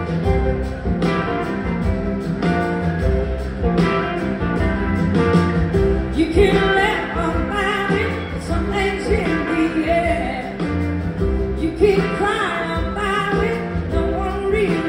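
Live rock band playing, with electric guitars, drums and keyboards and a voice singing over them.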